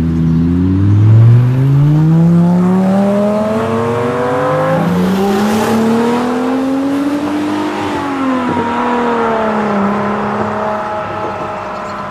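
Sports car engines accelerating hard past at close range, the note climbing, a gear change about five seconds in, then the pitch falling as the cars go by, with a rush of tyre and wind noise as they pass.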